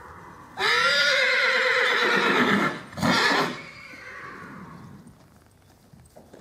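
A horse whinnying loudly: one long quavering whinny starting about half a second in and lasting about two seconds, then a shorter second call right after.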